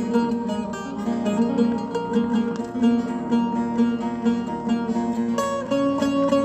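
Buzuq, a long-necked Levantine-Kurdish lute, played in quick plucked notes in a folk melody, moving up to a higher register about five seconds in.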